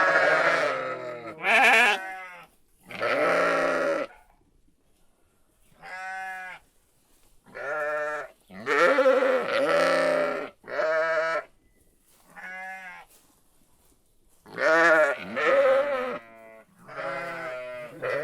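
Sheep bleating: about a dozen wavering calls of differing pitch and length, one after another with short pauses between them.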